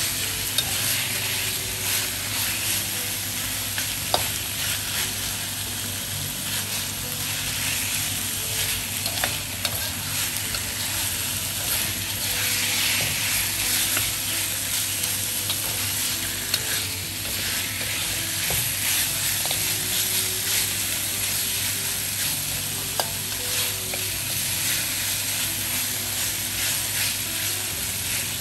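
Rib pieces coated in red chili paste sizzling in a wok as a metal spatula stirs and scrapes them around the pan. A few sharp clinks of the spatula against the wok stand out from the steady sizzle.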